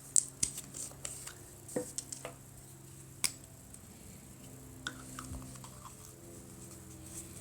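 Scattered small clicks and taps of the repair kit's glue bottle and small parts being handled, over a low steady hum.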